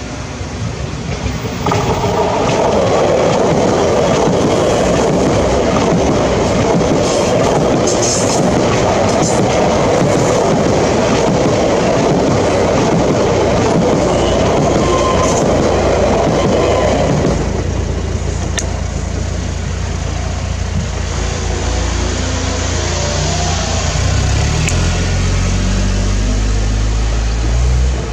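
Electric suburban train passing over a level crossing, a steady loud rumble of wheels on rails from about two seconds in to about seventeen seconds. After it has passed, car engines idle and then rev up near the end as cars pull away over the crossing.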